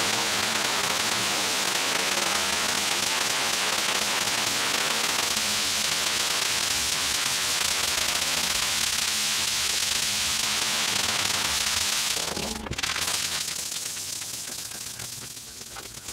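Pressure washer lance spraying water onto a mud-soaked shag rug: a steady, loud hiss of the jet and spray that stops about twelve seconds in, followed by quieter splashing.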